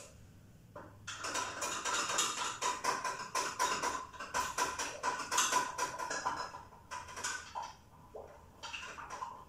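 Stirring rod clinking and scraping rapidly against a glass beaker as biomass is stirred vigorously into 72% sulfuric acid. The clinks start about a second in and stop near seven and a half seconds, with a few more near the end.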